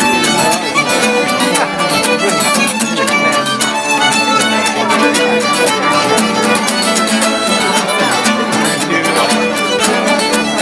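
Fiddle playing a tune in quick, short notes.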